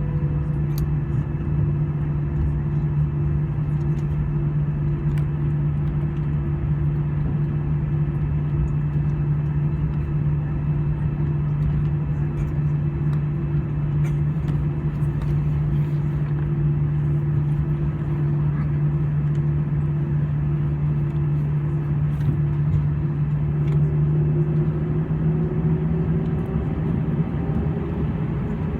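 Airbus A320 cabin noise with the jet engines at a steady low hum, two steady low tones under a rushing background. About five seconds before the end the tones start rising in pitch as the engines spool up for takeoff.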